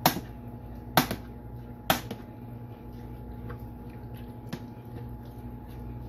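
Metal spoon knocking against a metal loaf pan while stirring thick baked beans: three sharp clinks in the first two seconds, then a few fainter taps.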